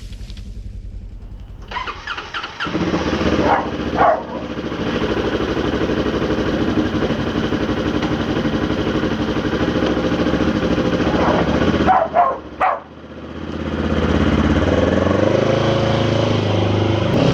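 A small petrol engine starts about two seconds in and runs steadily. It cuts out briefly about twelve and a half seconds in, then comes back with its pitch wavering up and down.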